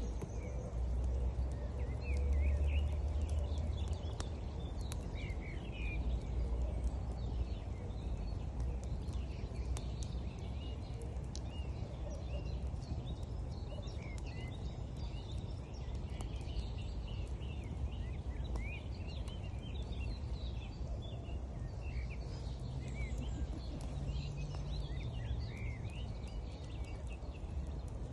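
Small birds chirping and twittering throughout over a steady low rush of river water, with occasional faint crackles from a wood campfire.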